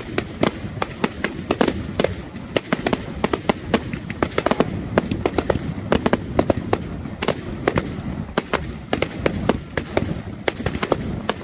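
Fireworks display: a rapid, continuous barrage of aerial shell bursts and crackling, several sharp bangs a second over a low rumble.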